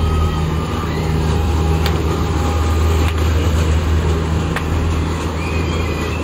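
Steady, loud low hum of a running fairground ride with a few sharp clicks and faint wavering high-pitched tones over it.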